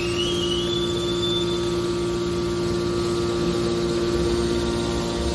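Hydraulic power unit of a scrap metal baler running steadily: the electric motor and hydraulic pump give a constant hum. A faint high whine rises and then holds for a second or two near the start.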